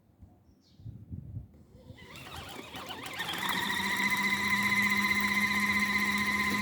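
Mini washing machine's electric motor starting up during the wash cycle, building over a second or so into a steady hum with a high whine. A few soft knocks come before it and one sharp click at the very end.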